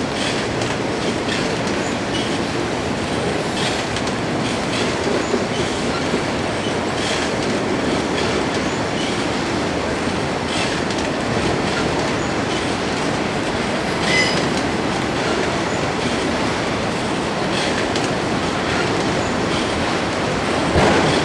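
Freight train cars rolling past: a steady rumble of steel wheels on rail, with scattered clicks over the rail joints and a brief wheel squeal about fourteen seconds in.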